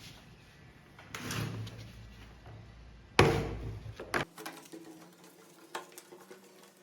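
Workshop handling sounds: a scrape, then a heavy knock about three seconds in, followed by a few light clicks, as parts of the power cutter are handled.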